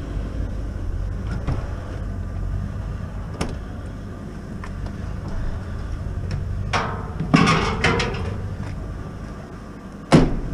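Scrap metal clattering as it is handled and loaded, with a burst of clanks about seven seconds in and a sharp knock near the end, over the steady low rumble of a vehicle engine idling.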